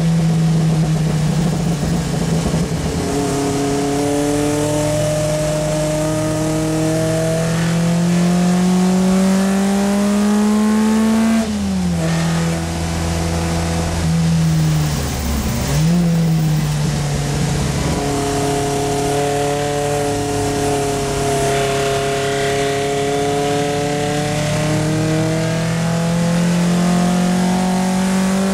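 Triumph Spitfire Mk3's four-cylinder engine heard from inside the cabin under racing load, its revs rising slowly and steadily. The revs drop sharply a little before halfway, dip briefly again just after halfway, then climb steadily through the rest. A constant hiss of spray from the wet track runs underneath.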